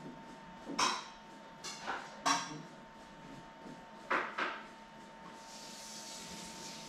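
Small tools and parts clicking and clacking on a workbench as they are handled, six or so sharp knocks in the first four and a half seconds. About five seconds in, a steady high hiss begins.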